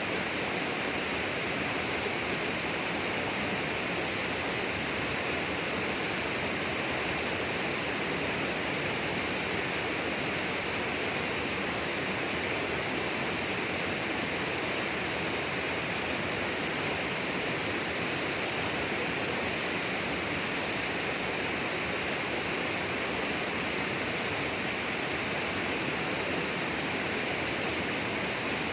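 Steady rushing of flowing water in tropical rainforest, even and unchanging throughout, with a constant high hiss on top.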